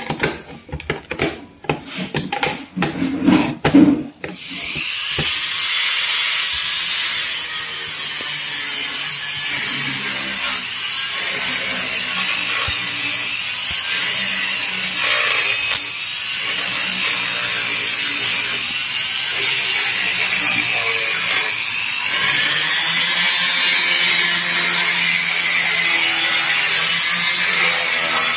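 A few clicks and knocks of handling for about the first four seconds. Then a pen-style mini rotary grinder starts and runs steadily, its sound shifting as the bit works over a small metal engine part, with a brief dip about halfway through.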